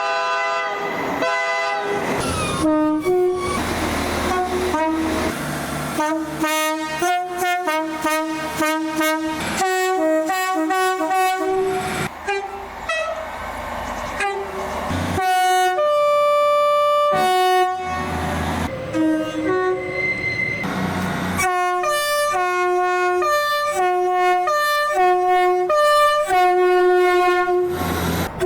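Train horns blowing a long string of short blasts and longer held ones, several notes sounding together as a chord. The chord changes abruptly between stretches, as one horn follows another.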